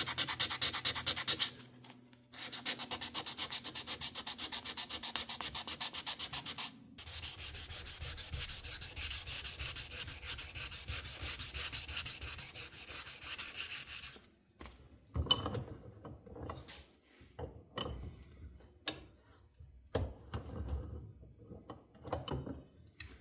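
Sandpaper rubbing on black canvas micarta knife handle scales in quick back-and-forth strokes, in three runs with short breaks, for the first half. After that, a few scattered knocks and handling sounds.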